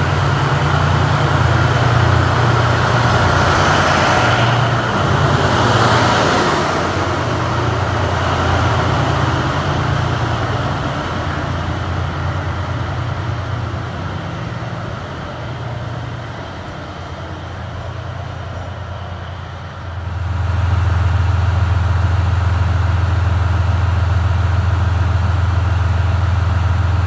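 DF200 diesel-electric freight locomotive running close by: a low engine drone mixed with rolling wheel noise that swells about four to six seconds in, then slowly fades. About twenty seconds in the sound cuts abruptly to a steady, louder engine drone.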